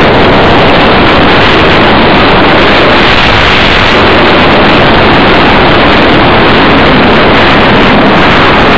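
Loud, steady rush of air over the microphone of a camera riding on a flying RC Easy Star model plane.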